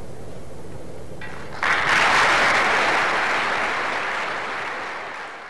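Audience applause breaking out suddenly about a second and a half in after the orchestra's final piece, then gradually fading away.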